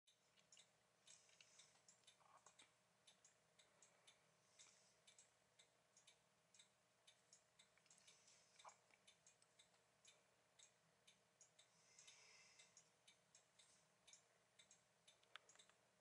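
Faint, irregular taps of a downy woodpecker's bill pecking at a suet cake held in a wire-mesh cage, about two or three taps a second.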